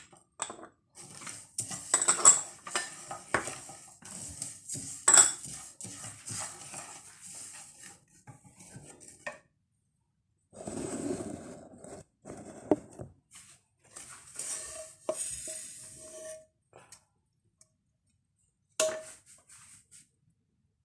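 Metal utensil scraping and clattering in a dry frying pan of roasted whole spices as they are taken off the stove, with several sharp knocks and a few short ringing clinks of the pan and utensils.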